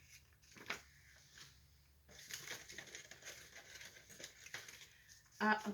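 Printed paper samples rustling and crinkling as they are handled and sorted, starting about two seconds in after a single faint click.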